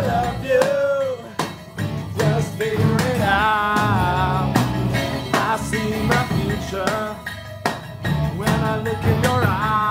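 Rock band playing a song in rehearsal: a lead singer holding wavering, vibrato notes over drums and guitar.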